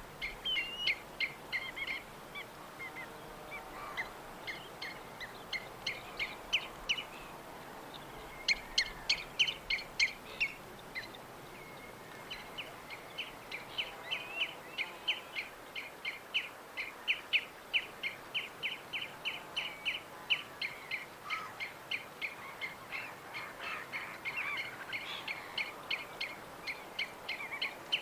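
Small birds chirping: short, high chirps repeated in quick runs, several birds overlapping, over a faint steady background hiss.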